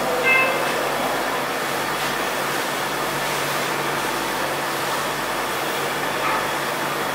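Steady hiss and low hum of intensive care room machinery and air conditioning, with a short electronic tone about a third of a second in and a fainter one near the end.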